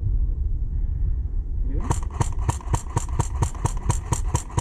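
Airsoft gun firing a rapid string of shots, about six or seven a second, starting about two seconds in over a low rumble of wind and handling noise on the helmet camera.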